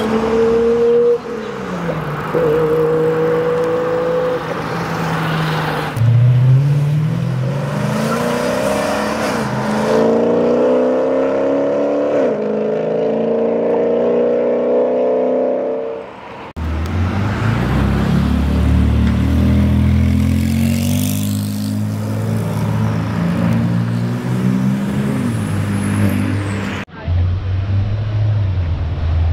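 Loud high-performance vehicle engines heard in a run of short cut-together clips. They rev and accelerate with the pitch climbing steadily through the gears, one goes past, and near the end a deep, low engine burble takes over.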